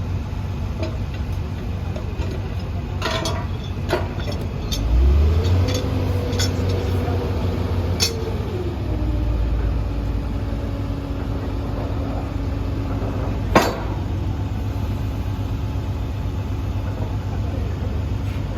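A heavy engine running steadily, revved up about five seconds in, held, then settling back to a lower speed around nine seconds. Several sharp metal clanks, the loudest a little past thirteen seconds.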